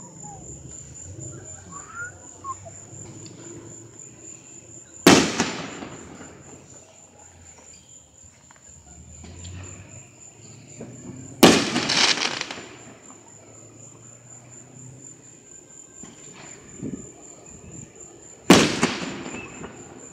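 Three fireworks shells bursting, about six to seven seconds apart: each a sharp bang followed by a crackling tail that dies away over about a second.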